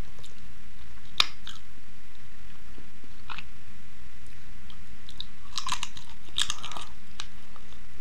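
Close-up chewing and crunching of a fried chicken empanada's crisp pastry crust: a few sharp crackles in the first few seconds, then a denser run of crunches about six seconds in.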